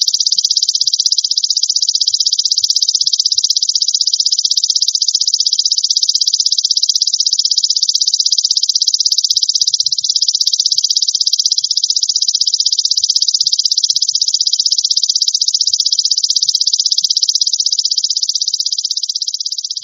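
Golden grasshopper (belalang emas) stridulating: one continuous, very fast, high-pitched buzzing trill, easing slightly near the end.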